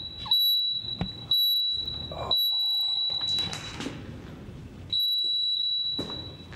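GYMNEXT Flex Timer, a gym interval timer, beeping: a high, steady electronic tone repeated four times, first two short beeps about a second apart, then two longer held beeps.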